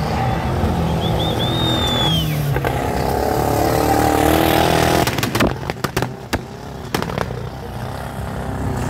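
Engine of an off-road tube-frame buggy revving hard as it climbs over dirt mounds on the track, loudest a few seconds in. After the revving comes a run of sharp knocks.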